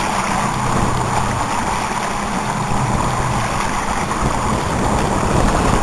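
Steady rush of wind on the microphone and water washing around a boat at sea, with the boat's engine running low underneath.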